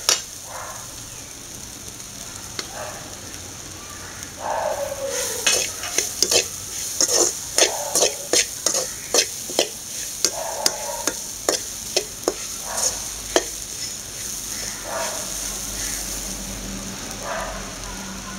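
Perforated steel spoon stirring and scraping a crumbly chana dal filling in a hot pan, with quick metal-on-metal clinks over a steady high sizzle of the frying filling. The clinks come fast from about four seconds in and thin out after about thirteen seconds.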